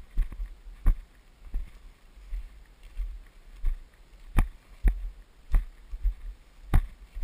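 Footsteps of a person walking through tall dry grass and scrub, picked up by a camera carried on the body: steady dull thuds about one and a half a second with faint brushing of stems.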